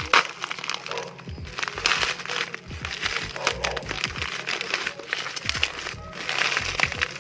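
Bubble-wrap packaging crinkling and rustling in irregular bursts as it is handled and unwrapped, over background music.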